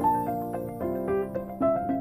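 Background music: a gentle keyboard melody of plucked, piano-like notes, a few to the second.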